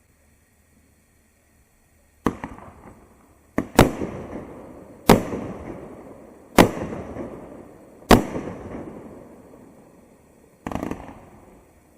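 A Winda 'Sky Throne' 500-gram consumer fireworks cake firing its shots: a string of seven sharp bangs, roughly one every second and a half, each trailing off in a fading rumble. The first bang comes about two seconds in, after a short silence.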